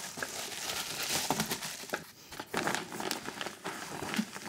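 Plastic crinkling and rustling as a foam sheet and a plastic bag are handled and pulled over a round wooden board.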